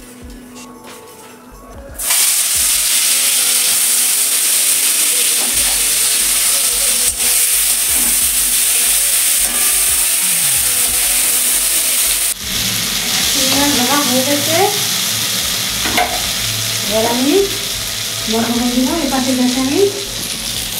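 Prawns coated in salt and turmeric dropped into hot mustard oil in an aluminium kadai: a sudden loud sizzle about two seconds in, then a steady frying sizzle as they are stirred with a spatula. In the later part, short wavering pitched tones come and go over the sizzle.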